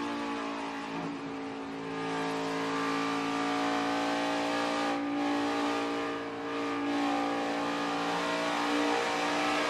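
NASCAR Xfinity Series stock car's pushrod V8 running at high revs, heard from its own onboard camera, with the pitch and loudness easing briefly about a second in and again about six seconds in before coming back up.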